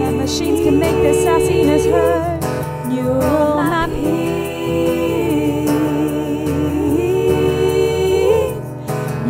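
Layered female vocal harmonies singing in a gospel-like style over a strummed acoustic guitar, the voices gliding and holding notes together.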